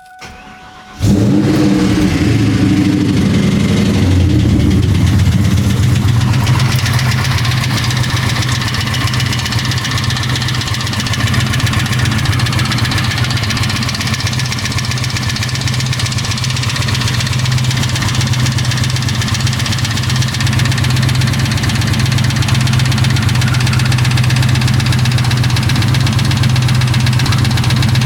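Ford 4.6-litre two-valve V8 of a Mustang GT starting about a second in, running at a raised idle for a few seconds, then settling to a steady idle with a ticking noise from the engine.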